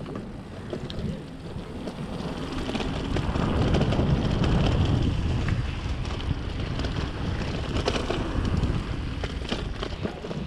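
Wind buffeting the microphone of a camera riding on a mountain bike, over the rolling noise of the tyres on a dirt trail, with scattered clicks and rattles from the bike over bumps. The wind rumble swells loudest in the middle.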